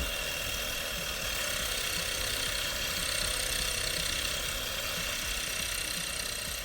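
Hedge trimmer running steadily, its cutter blades working through yew foliage.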